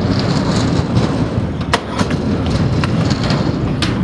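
Freestyle scooter wheels rolling on a half-pipe, a steady low rumble, with a few sharp clacks from the deck and wheels striking the ramp, one just under two seconds in and another near the end.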